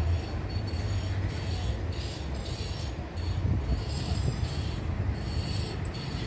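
Low, steady rumble of a vehicle engine running, with a few brief high squeaks.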